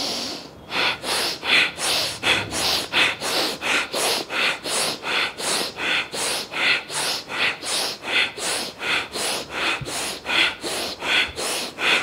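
Fast bhastrika pranayama (bellows breath): a person breathing forcefully in and out through the nose in a rapid, even rhythm, about three strokes a second.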